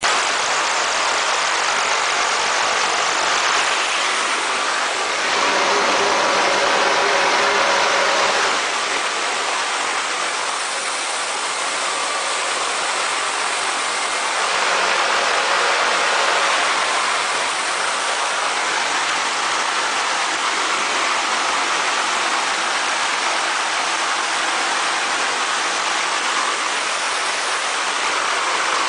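Helicopter turbine and main rotor running, heard from inside the cabin as a loud, steady rushing noise with faint steady tones. It swells slightly twice.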